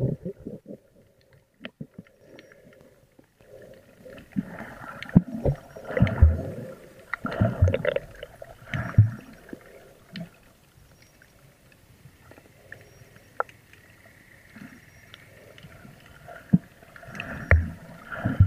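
Muffled underwater sound from a submerged action camera: water sloshing and gurgling around the camera housing, coming and going in irregular swells with scattered small clicks and knocks, quieter in the middle and louder again near the end.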